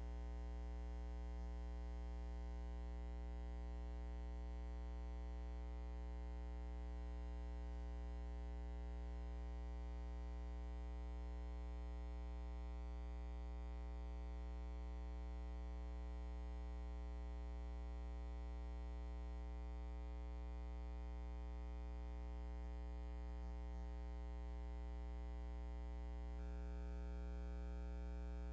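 Steady electrical mains hum with a buzzy edge, unchanging, on an otherwise empty soundtrack of a film transfer.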